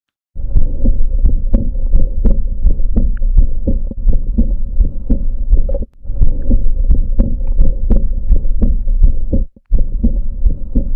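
Recorded stethoscope heart sounds of aortic regurgitation: a steady run of heartbeats carrying an early diastolic decrescendo murmur, the sign of blood leaking back through the aortic valve. The recording breaks off briefly about six seconds in and again near nine and a half seconds.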